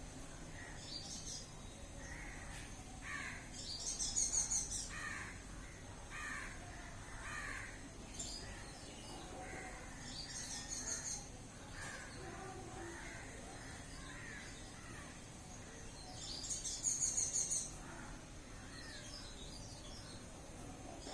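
Birds calling: three loud bursts of rapid, very high chirping, about four, eleven and seventeen seconds in, with a run of lower, shorter calls repeated between them.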